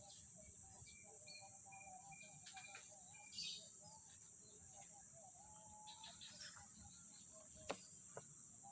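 Faint bird calls: scattered short chirps and a brief run of repeated high whistle notes, over a steady high-pitched hiss. A single sharp click comes near the end.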